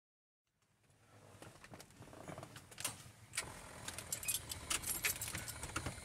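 Light clicks of cockpit switches and a jingle of keys being handled in a light aircraft's cabin while it is readied for engine start, with the engine not yet running.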